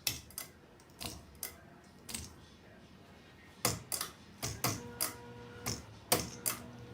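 A run of sharp, irregular clicks, about two a second. From about halfway through, the steady electric hum of a 1980s hugger ceiling fan's motor joins them.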